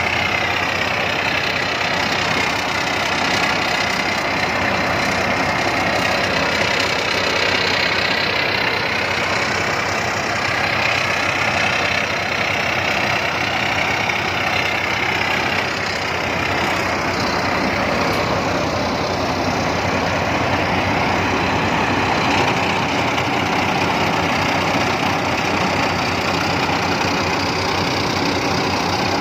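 Rice combine harvester's engine running steadily, with a high whine that drifts slowly up and down in pitch.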